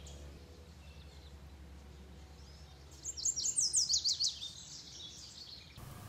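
Yellow warbler singing one quick song of high, sharply sweeping whistled notes about three seconds in, over a faint low background rumble.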